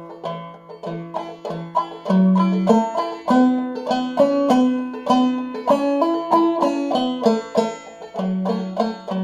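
Five-string banjo played clawhammer style in the basic bum-ditty strum, capoed at the second fret in the key of A. The melody is fretted with a single left-hand finger over ringing open strings.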